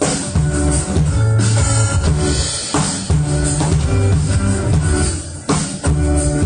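Instrumental music with a drum beat under sustained pitched notes, with no singing.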